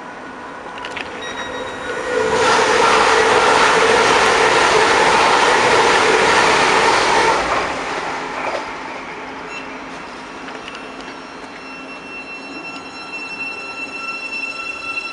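Electric train running into the station: a loud rushing rumble builds about two seconds in, holds for some five seconds and fades, then thin, high, steady squealing tones rise as it slows.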